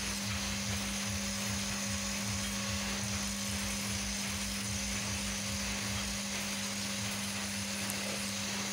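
Handheld electric angle grinder running steadily, with a constant hum, as it grinds down a loom's cam nose (lochis) to smooth and shape it.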